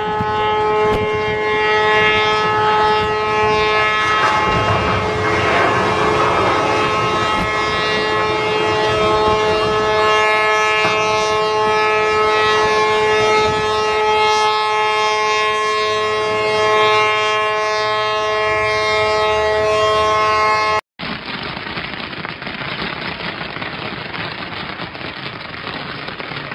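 Several ship horns sounding together in long, steady blasts of different pitches as a cargo ship is launched sideways, with a rushing splash of water about four to seven seconds in. About 21 seconds in the sound cuts off sharply to a steady rushing noise.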